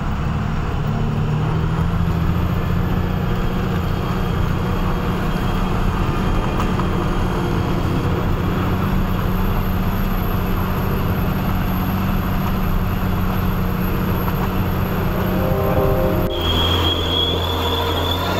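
Truck engine running steadily under load with road noise, climbing a rough dirt road. About two seconds before the end the sound changes abruptly.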